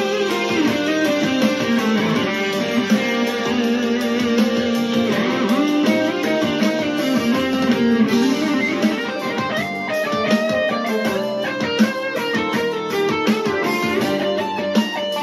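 Electric guitar playing a slow melodic improvisation: long held notes that slide in pitch, turning into quicker runs of short notes about halfway through.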